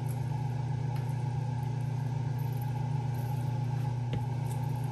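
Steady low mechanical hum, like a fan or motor running, with no change in pitch or level.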